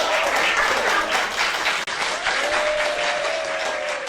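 Audience applauding, a dense patter of many hands clapping that dips out for an instant about two seconds in and then starts to fade.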